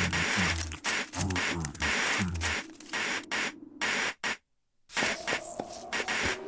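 Cartoon sound effects: choppy bursts of hiss with low buzzing tones through the first couple of seconds. The sound cuts to dead silence for under a second about four seconds in, then returns as quieter hiss with faint clicks.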